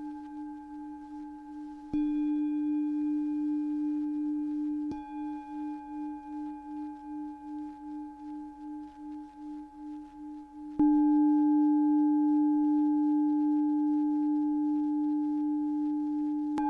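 Singing bowl ringing: a sustained low hum with higher overtones. Its level jumps suddenly about 2 seconds and 11 seconds in, and in between it wavers in a slow pulse.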